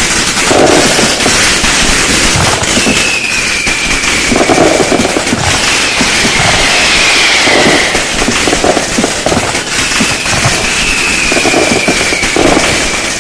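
Fireworks and firecrackers going off in a dense, continuous crackle of pops and bangs, with a whistle gliding down in pitch about every two and a half seconds.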